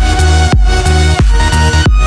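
Electronic dance music: a heavy synth bass line with a driving kick beat.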